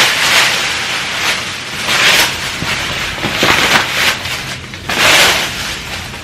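Packing paper crinkling and rustling as a stroller rain shield is pulled out of it and unfolded, in repeated loud bursts.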